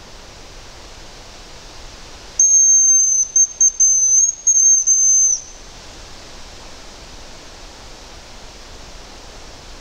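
Hazel grouse decoy whistle (manok) blown in a high, thin call imitating the bird, starting about two seconds in and lasting about three seconds, broken by several short gaps. Steady wind noise underneath.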